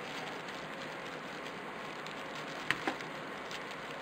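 Two light, sharp clicks close together, about two-thirds of the way through, over a steady faint hiss: fingernails working a small wire connector plug loose from a toy quadcopter's circuit board.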